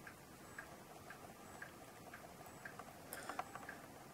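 Faint, steady ticking of a clock, about two ticks a second, with a few sharper small clicks about three seconds in.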